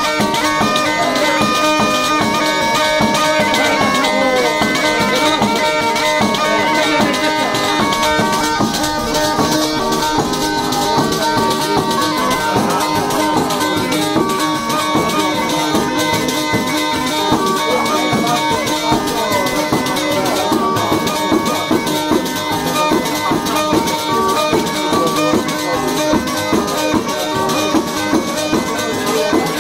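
A zampogna, the southern Italian bagpipe, playing a dance tune over steady drones, accompanied by a tamburello frame drum beating and jingling in rhythm.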